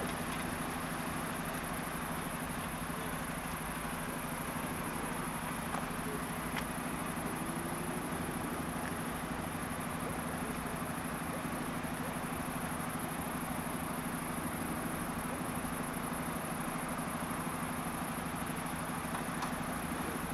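Steady low hum and rumble of a distant vehicle, even throughout with no build-up.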